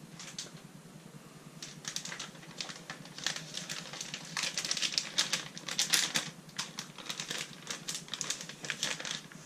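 Crinkling and crackling of a clear plastic vacuum-sealer bag holding chicken pieces as it is handled, a rapid irregular crackle that picks up about a second and a half in.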